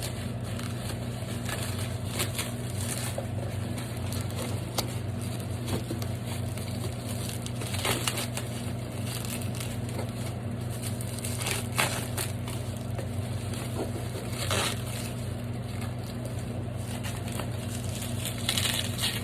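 A cardboard package being opened and handled by hand: intermittent rustling and crinkling with a few louder crackles, over a steady low hum.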